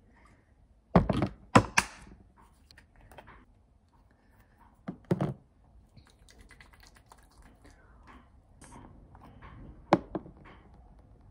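Plastic skincare bottles and caps handled: sharp clicks and knocks about a second in, again around five seconds and near ten seconds, like caps snapping and bottles set down on a counter. Soft rubbing of hands spreading lotion between the knocks.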